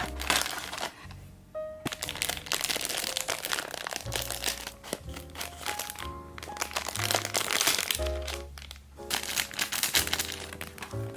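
Plastic packaging of a miniature-toy blind box crinkling and crackling as it is handled and opened. It comes in several stretches with short pauses, over light background piano music.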